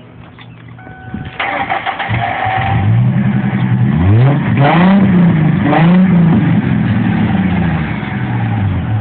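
1998 Ford Mustang's 3.8-litre V6 revved through a Cherry Bomb glass-pack exhaust, with no turbo whistler fitted yet. The engine climbs from idle, is blipped twice to higher revs about halfway through, then drops back toward idle near the end.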